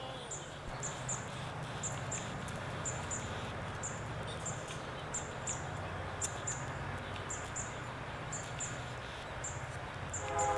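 A small bird chirping, short high chirps often in pairs, repeating about once a second, over a low steady hum.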